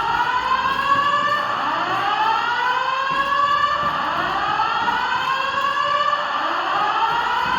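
Building fire alarm sounding a repeated rising sweep tone, a new sweep starting a little under every second and a half, the sweeps overlapping one another.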